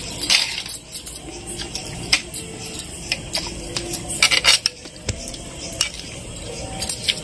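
Eating with the fingers from a banana leaf: fingertips scraping and pinching crumbs of crisp fried bitter gourd across the leaf, with crunchy chewing, a run of sharp clicks and crackles.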